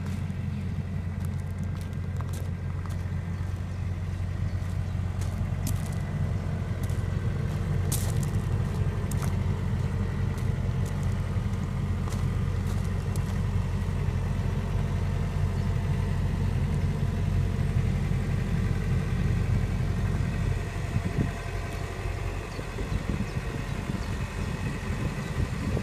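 Komatsu PC138 excavator's diesel engine running steadily, with scattered sharp clicks over the first half and a dip and change in the engine sound about twenty seconds in.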